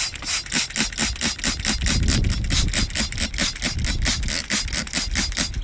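Hand trigger spray bottle squirted rapidly over and over, a quick run of short hissing sprays about six a second, wetting rocks to show up agates.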